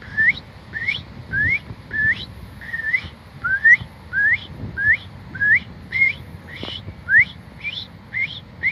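Human whistled imitation of an American robin's call: a string of short, sharply rising "preep" notes, about two a second.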